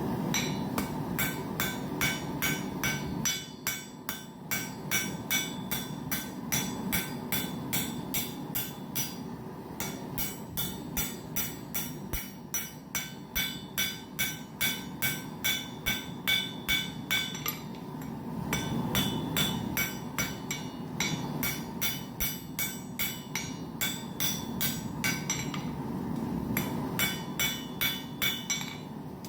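Hand hammer striking hot steel on an anvil in runs of about two to three blows a second, each blow ringing, with short pauses between runs as the piece is squared up. A steady rushing noise sits underneath.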